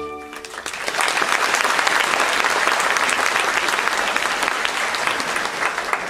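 An orchestra's last chord of the waltz cuts off about half a second in, then a theatre audience applauds steadily.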